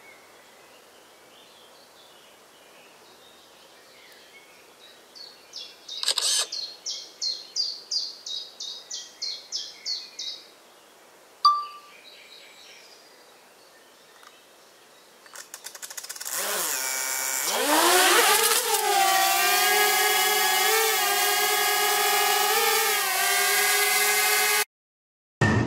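A small quadcopter drone's motors spin up with a steeply rising whine, then hold a steady, many-toned buzz as it lifts off, cutting off suddenly near the end. Before that come a rapid run of about a dozen high chirps and a single short beep.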